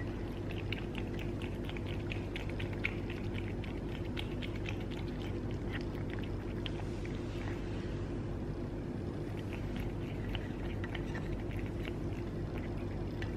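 A cat chewing and licking wet fish food: a run of small, irregular wet clicks. Under it runs a steady low hum.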